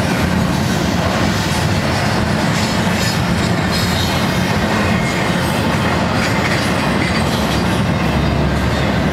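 A double-stack intermodal freight train's well cars rolling past close by: a steady, loud rumble of steel wheels on the rails.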